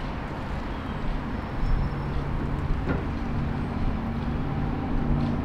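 Steady low rumble of passing vehicles, with a low engine hum that sets in about a second and a half in.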